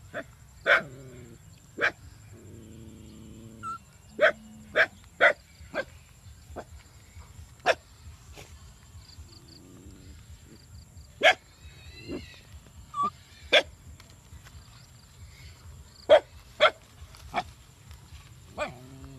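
Short, sharp barking calls from an animal, repeated irregularly about a dozen and a half times, some in quick runs of three or four, over a steady low rumble.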